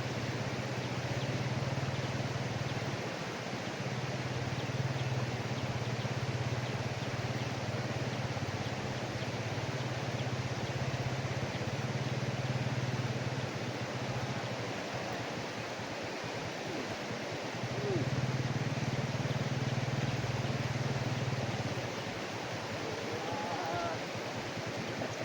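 Fast-flowing river water rushing steadily, with a low hum underneath that cuts out a few times.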